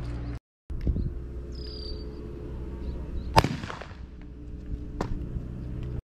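Two sharp cracks, the first about three and a half seconds in and the loudest, with a short ring after it, the second a thinner one near the end, over a steady low hum. A brief dropout to silence comes near the start.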